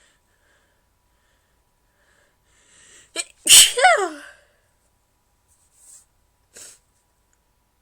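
A woman sneezing. A faint intake and a short catch come just before three seconds in, then the main sneeze, the loudest sound, with a voiced tail that falls in pitch. Two faint short noises follow.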